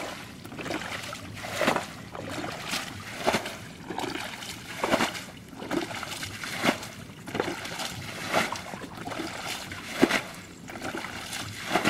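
Water being scooped and bailed out of a shallow muddy pool with a bucket: repeated sloshing splashes, roughly one a second.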